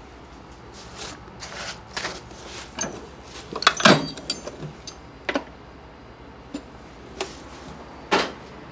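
Hand tools being rummaged through and handled: scattered clicks and knocks, with a louder cluster and a short metallic clink about four seconds in.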